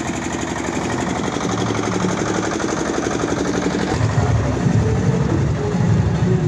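A steady, engine-like mechanical drone with a fast, even pulse, joined by a stronger low rumble about four seconds in.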